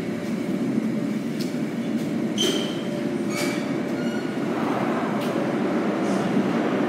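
An IRT subway train rumbling on the tracks, growing louder near the end, with a few short high squeals from its wheels.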